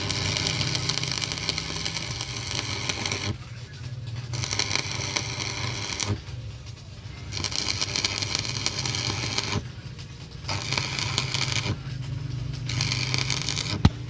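A power tool working metal in five bursts of one to three seconds each with short pauses between, over a steady low hum; a sharp click near the end.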